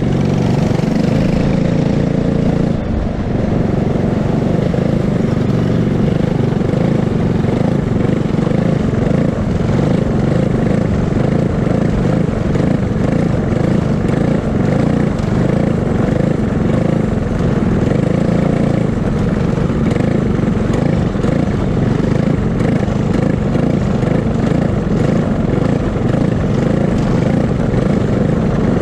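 Racing kart engine running steadily at low speed, heard from a camera mounted on the kart. A second kart is heard close alongside for the first few seconds.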